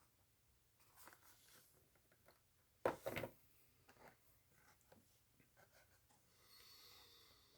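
Quiet handling noises: faint rustling, one short sharp knock about three seconds in, and a soft hiss near the end.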